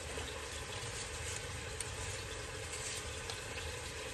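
Chicken breasts sizzling steadily in olive oil in a hot pan, with a few faint ticks over the hiss.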